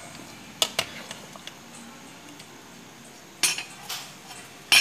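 A metal ladle clinking and knocking against a large metal soup pot: two sharp clinks about half a second in, a short clatter of knocks at about three and a half seconds, and one more knock at the very end.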